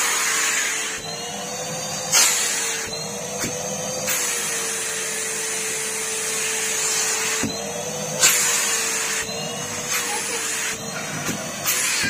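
Numatic Henry canister vacuum cleaner running steadily, its motor whine wavering slightly in pitch over a strong rushing hiss of air, as the hose nozzle works over a cord fabric sofa. A few sharp clicks cut in, the loudest about two seconds in and again about eight seconds in.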